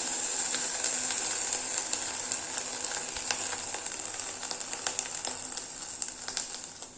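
Indian borage (omavalli) leaves sizzling and crackling in a hot pan on the stove, softening and giving up their moisture. The sizzle gradually grows fainter toward the end.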